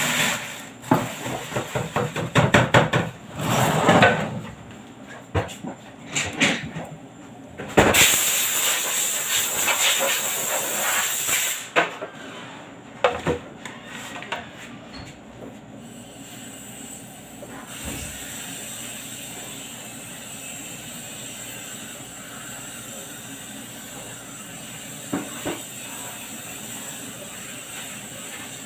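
Several sharp clicks and knocks, then a loud hiss lasting about four seconds, followed by a steady, fainter hiss.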